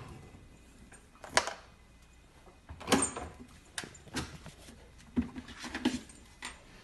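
Refrigerator door being opened and a husky puppy clambering into the fridge's bottom compartment: a series of short knocks and thumps, roughly one every second.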